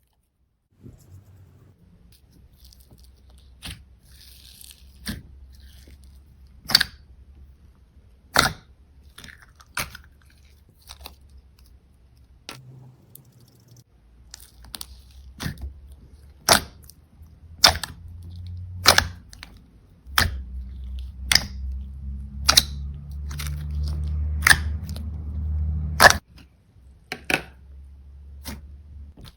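Slime being squeezed and poked by hand, giving sharp, irregular clicks and pops about one to two a second over a low rumble.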